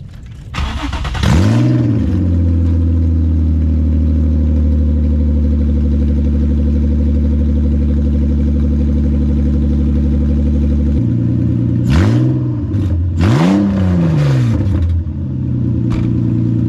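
Infiniti G35's 3.5-litre V6 starting up with a quick flare of revs, then idling with a loud, deep exhaust note, and revved twice near the end. The exhaust sounds like a truck.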